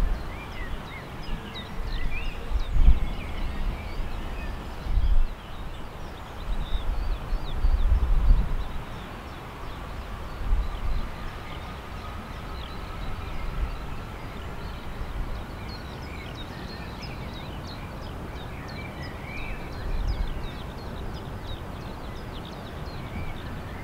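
Small birds chirping and wind buffeting the microphone in gusts. Under them is the faint, distant whine of an Airbus A330-243's Rolls-Royce Trent 700 engines on its takeoff roll, rising slowly in pitch from about nine seconds in.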